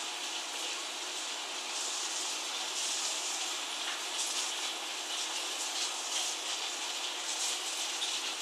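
Steady rushing hiss of water circulating through a reef aquarium's filtration, with small swells of trickling and splashing.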